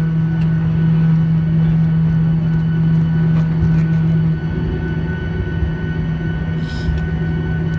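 Jet airliner's turbofan engines heard from inside the cabin, running steadily at taxi power as the aircraft lines up on the runway: a loud drone with a low hum and a faint high whine. About four and a half seconds in, the low hum drops out and the drone gets slightly quieter.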